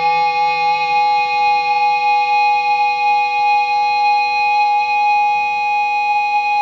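Instrumental break in a rock song with no singing: a chord held steadily as long sustained notes.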